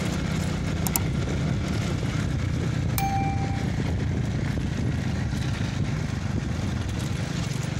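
Motorcycle engine running steadily as the bike rides along, with a short steady beep about three seconds in.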